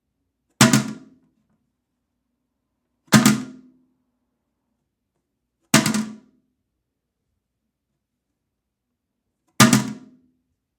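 Toilet lid slammed shut four times, each a single sharp plastic bang with a brief ring, a few seconds apart.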